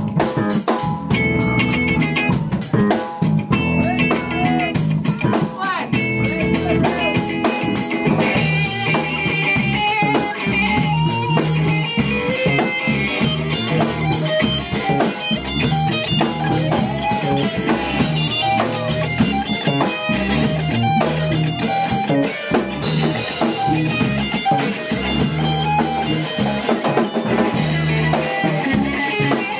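A small band playing live: guitar and drum kit.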